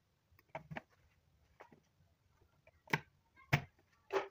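Pliers and copper wires clicking and knocking against a plastic conduit junction box as the wires are gripped and pulled: a quick pair of light clicks about half a second in, then three louder knocks spaced through the last second and a half.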